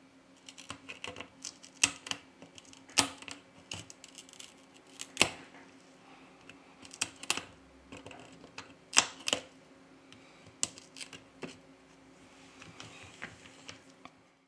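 Small metal repair tools clicking and tapping against an iPhone XS Max's housing in irregular sharp clicks, several of them loud, over a steady low hum.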